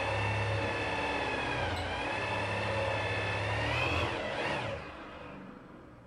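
Electric drill boring a hole into a wooden door with a wood bit: a steady motor whine that dips briefly about two seconds in, rises near four seconds, then winds down and stops.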